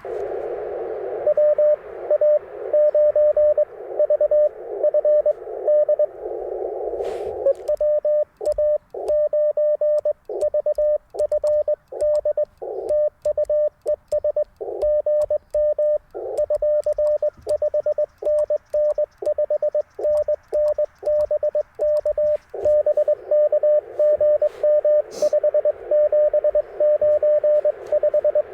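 Morse code (CW) from an Icom IC-705 transceiver: a single steady-pitched beep keyed rapidly in dits and dahs. Band hiss sits behind the signals at the start and again near the end, and a cleaner stretch of keying runs through the middle. This is the back-and-forth of working a pileup of stations calling during a portable activation.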